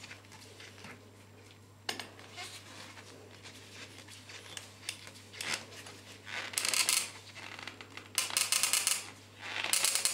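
Screwdriver tightening the terminal screw of a BS 951 earth clamp onto a bonding conductor: small metal clicks and scrapes, a click about two seconds in, then three short rasping bursts in the second half as the screw is driven home.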